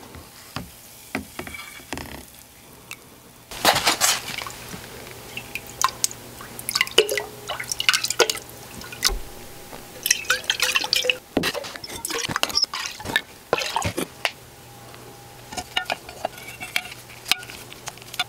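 Liquid sloshing and dripping among clinks and knocks of glass: nickel sulfate plating solution handled in glass mason jars.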